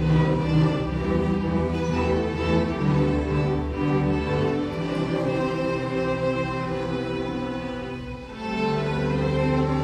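String orchestra of violins and cellos playing sustained bowed notes. About eight seconds in the sound briefly thins out, then the strings come in together on a new held chord.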